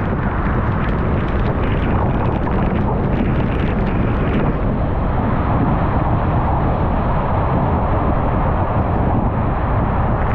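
Steady road noise from a car driving on a rain-soaked road, with tyres hissing on the wet surface and rain pattering on the glass. The pattering stops about four and a half seconds in, when the car passes under a freeway overpass, leaving only the steady road noise.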